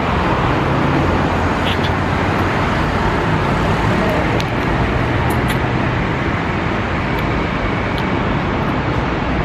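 Steady city street traffic noise with a low engine hum underneath.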